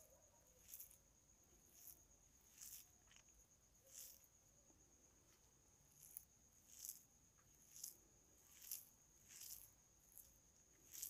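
Faint soft crackling rustles, about once a second, as fingers crumble fried red saag leaves and mix them into rice, over a faint steady high-pitched trill.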